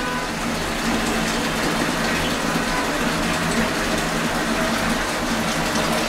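Water rushing steadily into the drum of a Singer SWM97108X top-loading washing machine, with a faint low hum underneath.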